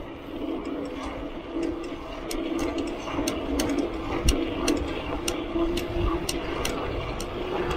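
Mountain bike rolling along a grooved concrete road: a steady tyre hum over a low rumble. From about two seconds in there are sharp, irregular clicks, a few a second, from the bike rattling as it rides.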